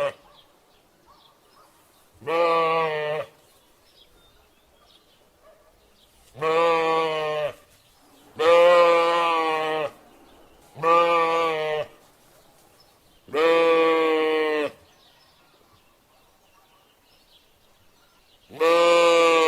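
Sheep bleating: six separate bleats, each lasting about a second, with pauses of one to four seconds between them. The last bleat begins near the end.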